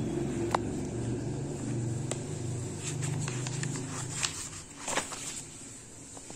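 A spiral-notebook paper page being turned by hand, rustling and flapping in a cluster of short sounds about three to five seconds in, the loudest near the end. Under it runs a low, steady hum that fades out about two-thirds of the way through.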